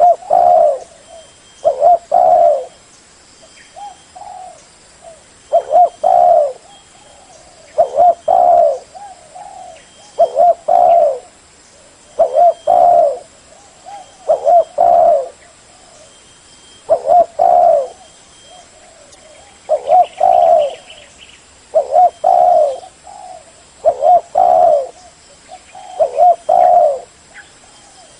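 Spotted dove cooing: a loud, low, multi-note coo phrase repeated about every two seconds.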